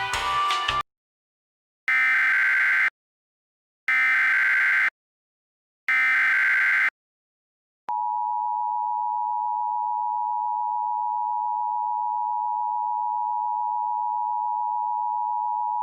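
Emergency Alert System tones: three one-second bursts of SAME header data a second apart, then the EAS two-tone attention signal (853 and 960 Hz together) held steady for about eight seconds. The tail of a piece of music cuts off under a second in.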